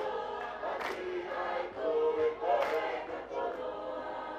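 Tongan lakalaka sung by a large mixed choir of young men and women, voices held in harmony on long chanted phrases. Two sharp hits cut through the singing, about two seconds apart.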